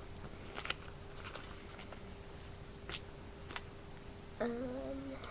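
Plastic LEGO bricks being handled and pressed together: a handful of small sharp clicks spread over the first few seconds. Near the end comes a short hum, under a second long.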